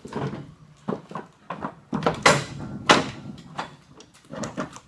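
Craftsman walk-behind lawn mower being tipped over onto its side on a wooden workbench: a series of clunks, knocks and scrapes as the steel deck and wheels shift and come down. The loudest knocks come about two and three seconds in.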